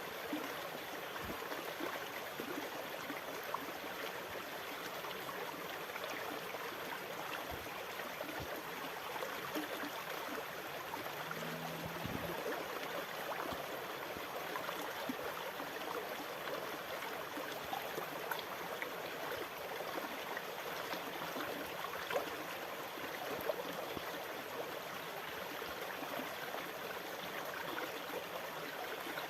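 Water running steadily with a gurgling, trickling sound and small scattered clicks, even in loudness without the swell of breaking waves. A brief faint low hum about twelve seconds in.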